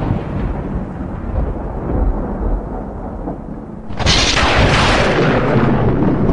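Cinematic intro sound effect: a deep, thunder-like rumble that slowly dies down, then a second loud rushing blast about four seconds in that cuts off abruptly near the end.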